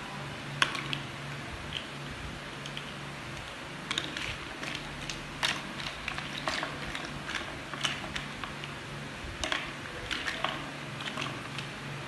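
Large plastic building blocks clicking and clattering as they are picked from a pile and snapped together, in irregular sharp clicks, over a steady low hum.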